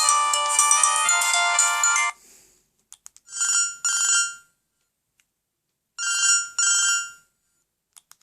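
Siemens SL55 mobile phone ringtones from the phone's speaker: a busy electronic melody cuts off about two seconds in. Then a trilling ring-ring ringtone sounds twice, each ring a pair of fast trills, with a pause between them.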